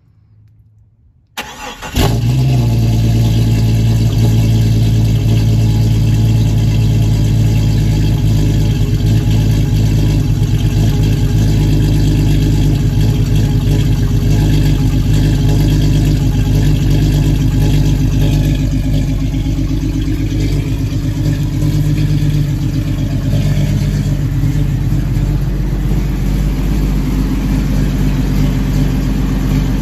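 Jeep Cherokee XJ's 4.0 inline-six on a cold start. It cranks briefly, catches about two seconds in, and runs at a steady fast idle through a Banks header and Flowmaster Super 44 muffler. The idle eases slightly lower about two-thirds of the way through.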